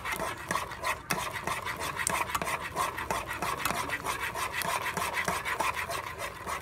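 Metal utensil stirring gravy fast in a small stainless steel saucepan: a rapid, steady run of scraping and clicking strokes against the pan's bottom and sides as the gravy is mixed.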